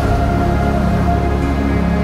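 Background soundtrack music: long held notes over a deep, steady low drone, with no beat.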